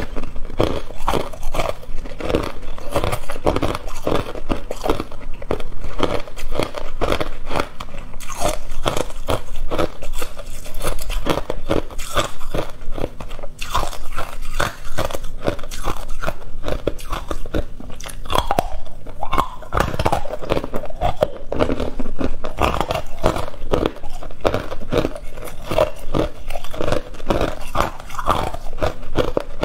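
Hard, clear ice being bitten and chewed: a continuous, rapid run of sharp crunches and cracks.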